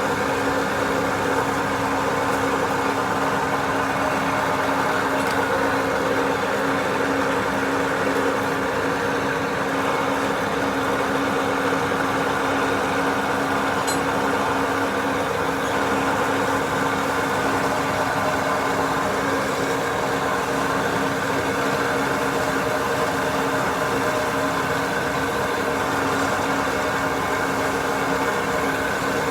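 A machine running steadily without change, a constant hum with one steady tone.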